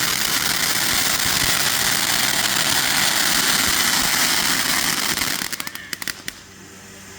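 A small consumer firework burning with a steady hissing crackle. Near the end it breaks into a few scattered pops and crackles, then dies away.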